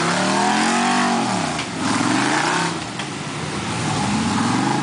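Off-road rock-crawler buggy engine revving in repeated bursts, its pitch rising and falling about three times as the buggy climbs a rocky slope.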